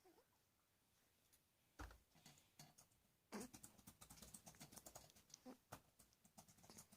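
Near silence with faint scattered clicks and soft rustles, growing denser from about halfway in.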